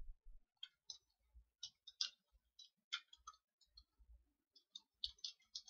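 Faint, irregular clicks of a computer keyboard being typed on, about two or three keystrokes a second, with a quicker run of keys near the end.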